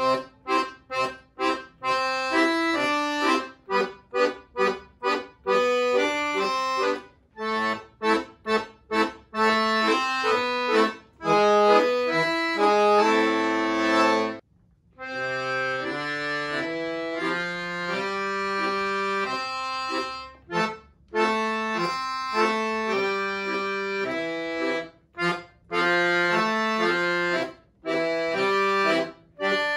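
Piano accordion played solo: many short, detached chords over the bass in the first half, a brief break about halfway through, then longer held chords and quicker runs.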